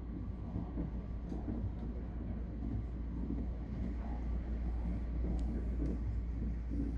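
Tobu 60000 series electric multiple unit running along the line, heard from inside the front car as a steady low rumble with a few faint clicks.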